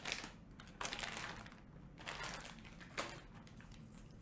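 Quiet crinkling of a small plastic zip bag of Holtite sockets being handled, in a few short bursts, with a sharp click about three seconds in.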